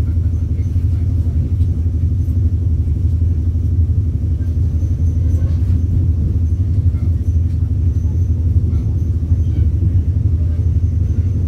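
Steady low rumble and hum of a diesel-hauled passenger train running, heard from inside the closed coach.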